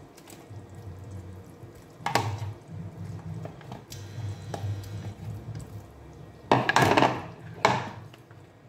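Pieces of boiled meat tipped from a plastic bowl into a pot of simmering onion stew: wet plops into the sauce and a spoon scraping and knocking against the bowl. There are a few separate events, the loudest cluster coming near the end.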